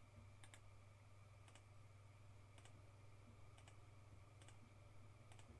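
Faint clicks at a computer, about one a second, over a steady low hum; otherwise near silence.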